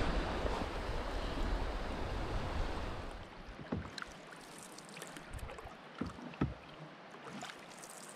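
Wind buffeting the microphone for the first three seconds, then dying away. After that, soft irregular splashes and drips of a canoe paddle in the river water.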